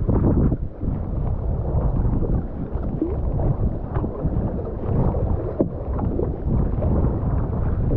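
Strong wind buffeting the microphone in a rumbling low roar, with water sloshing and splashing around a kayak on choppy water.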